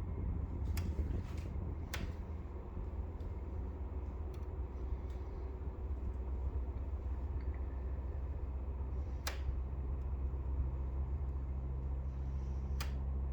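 Brand-new Pioneer 9000 BTU mini split running with a steady low hum, broken by several sharp clicks at uneven intervals. The owner takes the clicking for a fault in the unit.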